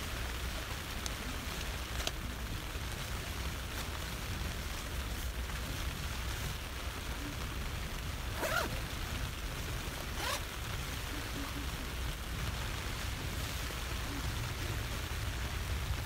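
Steady rain pattering on a tent's fabric, heard from inside the tent, with the rustle of nylon clothing and a jacket zip being worked about halfway through.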